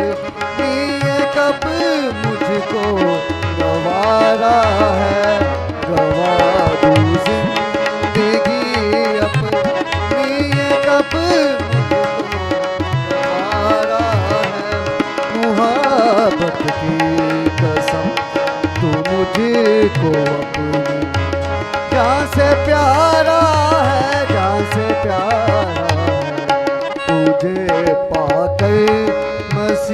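Tabla played in a running pattern under sustained harmonium chords, with a melody sliding up and down in pitch over them.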